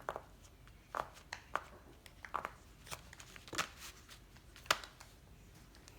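Fidget toys being handled and set down: scattered light clicks, taps and rustles, about half a dozen, with one sharper tap near the end.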